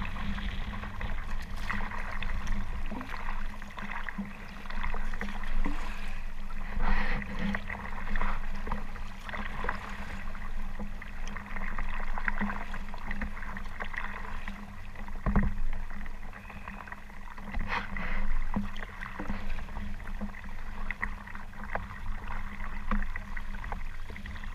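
Kayak moving through rough water: paddle splashes and waves slapping against the hull in uneven bursts.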